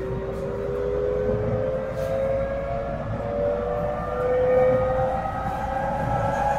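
Tsukuba Express TX-1000 series electric train heard from on board, its traction motors whining in several tones that rise steadily in pitch as the train accelerates, over a low rumble of the running gear.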